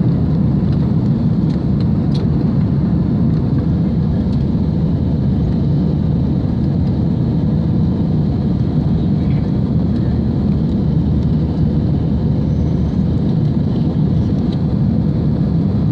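Airbus A320 cabin noise during the climb after takeoff: a loud, steady low rumble of the engines and rushing air, heard from inside the cabin.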